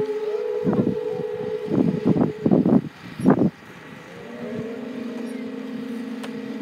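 Conch-shell trumpets (horagai) blowing long, steady held notes, a higher note early and a lower one from about four seconds in. Several loud gusts of wind buffet the microphone between about one and three and a half seconds in.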